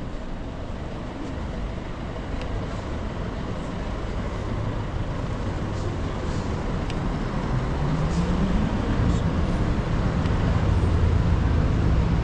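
City street traffic rumble, with a motor vehicle's engine hum growing louder in the second half as it draws near.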